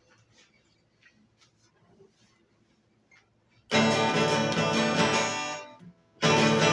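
Twelve-string acoustic guitar, quiet at first with a few faint string and finger ticks, then strummed hard in loud chords from about halfway. The strumming stops briefly and starts again near the end.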